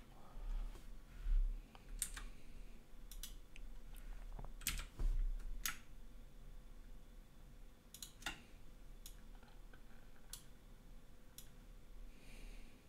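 Computer mouse and keyboard clicks, about a dozen, spaced irregularly.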